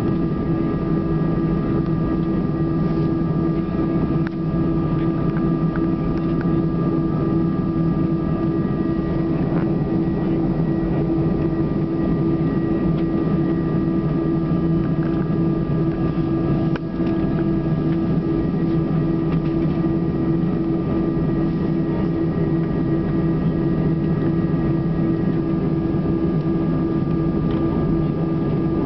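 Cabin sound of an Airbus A319's jet engines at idle thrust while the airliner taxis and lines up on the runway before take-off: a steady low hum with a few thin, steady whining tones, one of which fades out near the end.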